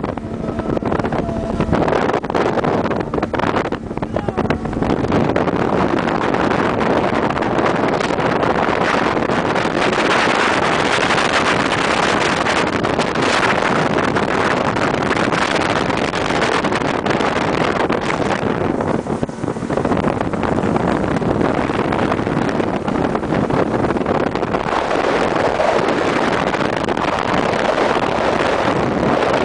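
Small motorboat under way across open water: steady engine and water rush, with wind buffeting the microphone.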